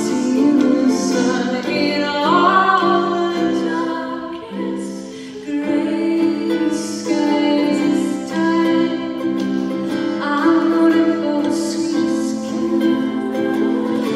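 A woman singing while she strums a ukulele as her own accompaniment.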